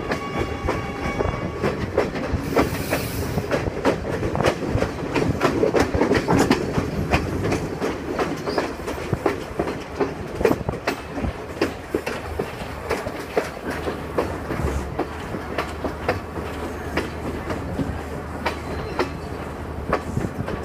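Passenger train running along the track, heard from aboard: wheels clacking over rail joints in a dense, irregular stream of knocks over a steady rumble.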